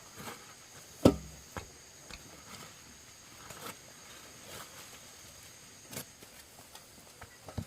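Scattered light knocks and taps, with one sharper, louder knock about a second in, over a faint steady high-pitched hum.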